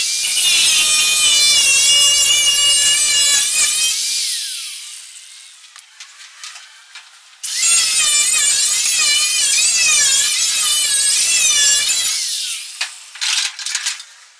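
A cutoff wheel cutting through rusted car-body sheet metal: a high-pitched whine whose pitch wavers as the wheel bites. It makes two long cuts, each ending with the whine winding down, and a few short clicks near the end.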